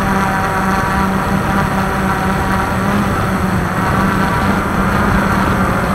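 Walkera QR X350 Pro quadcopter's electric motors and propellers running steadily, a constant buzzing hum.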